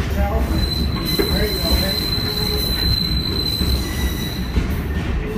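Passenger train rolling along the track with a steady low rumble, its wheel flanges squealing in a thin, high, steady tone for about three seconds, then briefly at a lower pitch.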